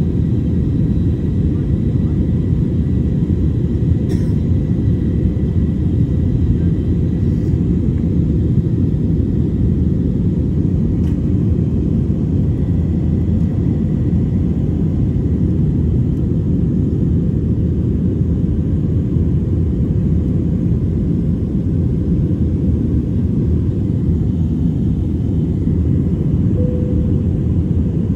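Jet airliner cabin noise: the steady, even rumble of the engines and airflow heard from inside the passenger cabin. A few faint ticks and, near the end, a couple of short tones sit on top of it.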